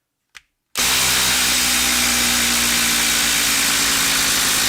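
A 12-volt brushed subcompact impact driver starting suddenly and running flat out at a steady pitch, hammering as it drives a long Timberlok screw into wood.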